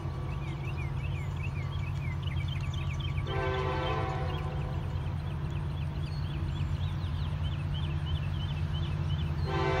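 An approaching diesel locomotive's horn sounding in separate blasts: one ending just as the sound begins, one starting about three seconds in, and another starting near the end. Underneath is the steady low rumble of the train's diesel engines. Birds chirp in the gaps between blasts.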